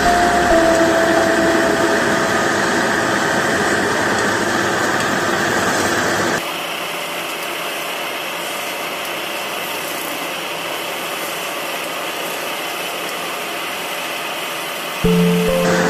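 Wood lathe spinning a wooden spindle while a hand-held chisel cuts into it: a steady, noisy whir. About six seconds in the sound changes suddenly to a thinner hiss, and a few musical tones come back near the end.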